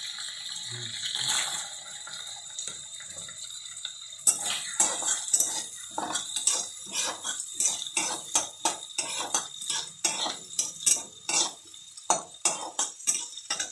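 Chopped onions and green capsicum sizzling in hot oil in a steel kadai, a steady hiss, then from about four seconds in a metal spatula scraping and knocking against the pan about twice a second as the vegetables are stirred.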